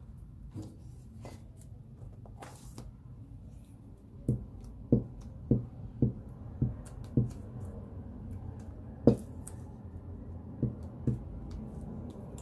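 Glue stick rubbed in quick strokes over a scrap of paper lying on a catalog, each stroke giving a soft knock on the tabletop. The knocks come about twice a second from about four seconds in, with a few more later. Faint paper rustling comes before them, over a low steady hum.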